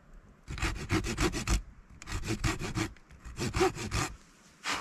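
Hand saw cutting wood: three runs of quick rasping strokes, about six a second, with short pauses between them and one last stroke near the end.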